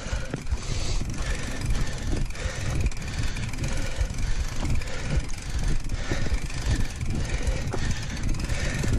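Mountain bike rolling over a bumpy dry dirt trail: a steady rumble of tyres and wind on the microphone, with frequent small knocks and rattles from the bike over the bumps.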